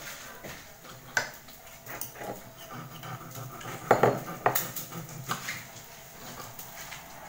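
Cutlery and dishes clinking: a handful of separate knocks and scrapes, the loudest about four seconds in.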